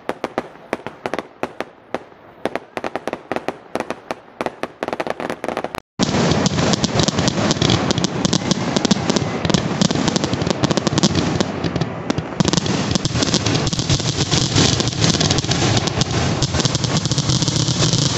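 Fireworks crackling and banging: for the first few seconds sharp, separate cracks, then, after a short break about six seconds in, a much louder, dense, unbroken crackle of bursts from a firework shooting up and showering sparks.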